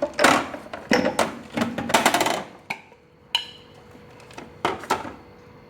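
Small storage containers being handled: a string of knocks and clatters as they are picked up and set down, with a short rattle about two seconds in.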